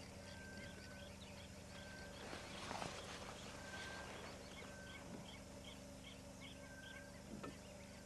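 Faint chorus of small animals: rapid short chirps at about two to three a second, and short level whistles every second or two, over a steady low hum. A brief rustle comes about three seconds in.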